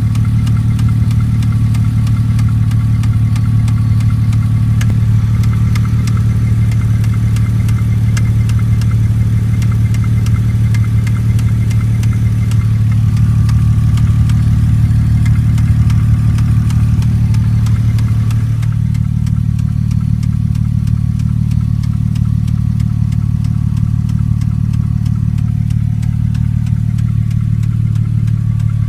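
2002 Porsche Boxster flat-six engine idling with a fast, steady ticking over the engine note, which shifts about two-thirds of the way through. The owner is unsure whether the tick is a sticking lifter or a blown header gasket.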